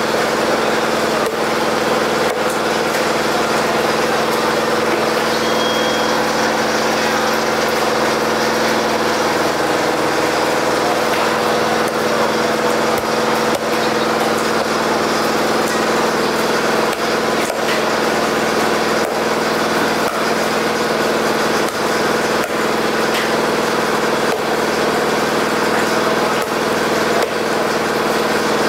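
Irregular sharp knocks of a large knife striking a wooden chopping block as giant trevally fillet is cut into chunks, over a steady motor hum with a constant drone.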